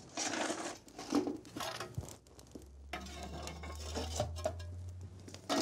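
Metal fire iron scraping and clinking in the firebox under a cast-iron copper as the fire is stoked, in short irregular bursts with one sharp click. A low steady hum runs under the second half.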